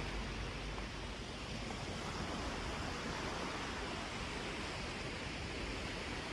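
Steady rushing noise of wind on the microphone and surf washing on the beach.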